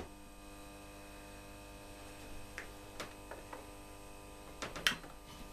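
Forklift battery charger's transformer humming steadily at mains frequency just after being switched on, under heavy load charging a pair of 24 V batteries at about 54 amps. A few light clicks and knocks come from a clamp meter being handled about halfway through.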